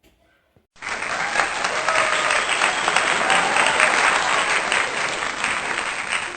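Loud crowd applause that starts abruptly about a second in, a dense clatter of many hands clapping.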